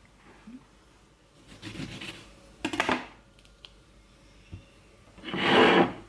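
Kitchen food-prep handling noises: a lemon being cut and squeezed by hand over a plate, heard as a few short rasping, rubbing sounds. The loudest and longest comes near the end.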